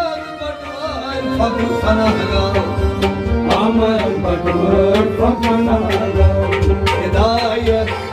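Live Kashmiri folk music: a hand drum beating a steady rhythm under a plucked long-necked string instrument, with a voice singing wavering melodic phrases twice.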